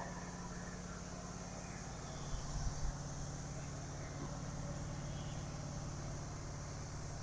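Wood-Mizer LT15 band sawmill running steadily with a low, even hum.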